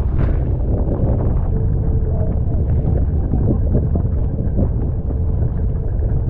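Strong wind buffeting the microphone over the rushing water of a catamaran sailing fast in high wind, a heavy steady rumble. A faint steady whine comes in about a second and a half in.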